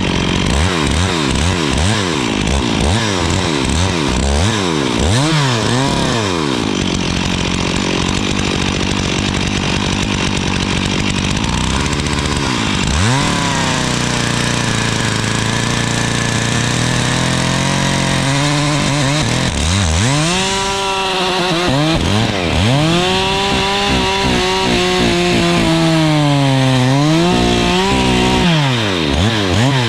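Stihl chainsaw cutting wood, its engine pitch swinging up and down rapidly over the first few seconds, then held high, and from about halfway on dropping and recovering several times as the chain loads up in the cut.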